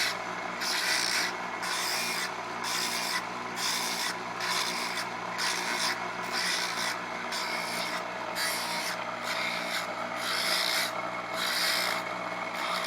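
Bench grinder running steadily with a hook-scraper steel blade pressed flat to the side of the wheel in short repeated touches, about one and a half rasping grinds a second over the motor's hum. The contacts are kept short so the steel doesn't overheat and turn blue at the edge.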